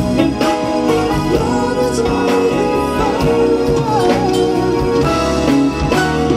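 A band playing an instrumental passage of a slow soul ballad, with sustained chords and a wavering melodic lead line.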